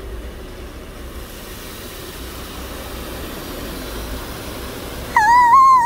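Automatic car wash spraying water over the car, heard from inside the cabin as a steady hiss with a low rumble. Near the end a loud, high warbling tone cuts in over it.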